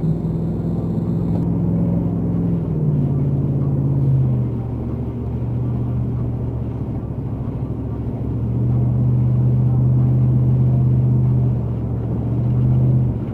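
Truck engine drone heard from inside the cab, a steady hum whose pitch steps down twice in the first few seconds, rises again a little past the middle and drops near the end.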